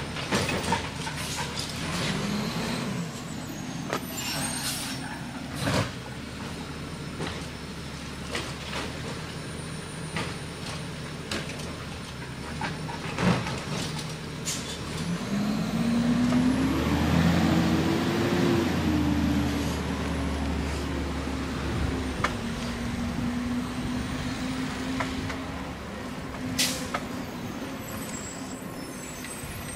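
Waste Management automated side-loader garbage truck working the bins: its diesel engine runs steadily, then revs up about halfway through, rising in pitch and holding there for several seconds while the arm's hydraulics work. Sharp knocks, clanks and air-brake hisses come at intervals throughout.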